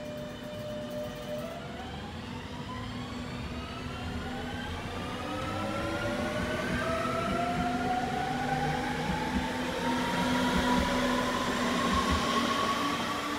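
Regional electric multiple unit accelerating past on the track, its traction motors giving a whine that climbs steadily in pitch over a steady low hum. It grows louder as the train comes close.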